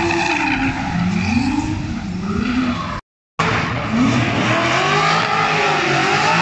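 Drift car sliding with its tyres squealing and its engine revving up and down as the throttle is worked mid-drift. The sound cuts out briefly about halfway, then the engine and tyres carry on.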